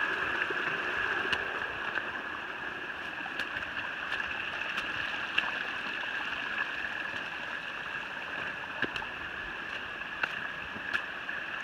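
Runoff water running and trickling over the rocks of a flooded trail, a steady rushing sound, with a few faint clicks scattered through.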